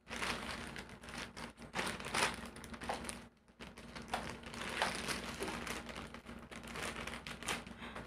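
Black plastic courier mailer bag crinkling and rustling as it is handled and cut open with scissors, in a run of short sharp crackles with a brief pause a little after three seconds in.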